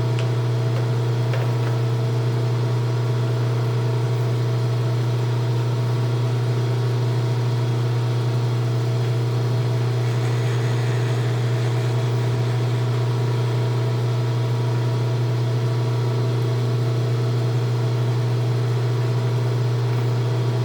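Steady low machine hum from a running electric motor, unchanging throughout, with a few fainter steady tones above the main drone.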